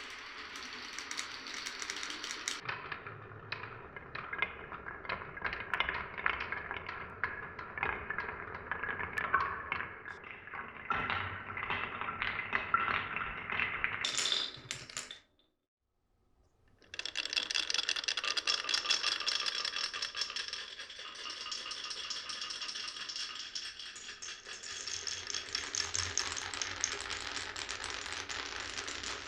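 Marbles (ビー玉) rolling and clacking along a wooden marble run, a dense stream of fine clicks and rattles. About halfway through the sound cuts out completely for about a second and a half, then resumes as a brighter, steadier rattle.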